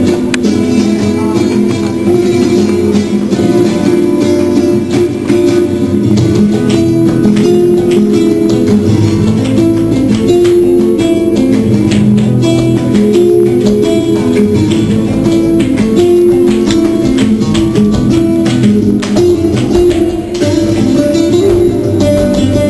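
Flamenco guitar music, plucked and strummed in a driving rhythm, with frequent sharp clicks of tap shoes striking the floor.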